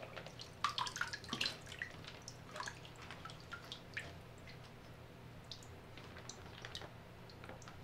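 Water splashing and dripping off a soaked blue fabric bag as it is lifted out of a sink of water after a submersion test: a flurry of splashes in the first two seconds, then scattered drips falling into the basin.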